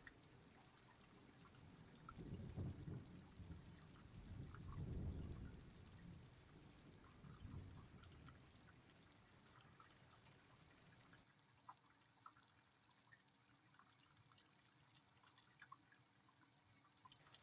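Faint rain with scattered drips and a trickle of water, and a few low rumbles in the first half, the loudest about five seconds in.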